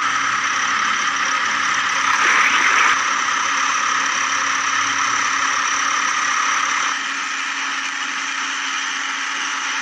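Steady mechanical running sound like a motor or engine, with a brief louder hiss about two to three seconds in; the deep part of the sound drops away about seven seconds in.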